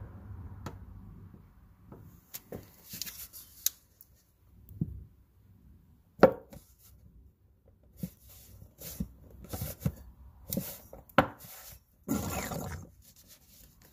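Irregular light clicks, taps and short rustles from a squeezed plastic gear-oil bottle and its hose being handled while fluid is fed into a differential, with one sharper knock about six seconds in.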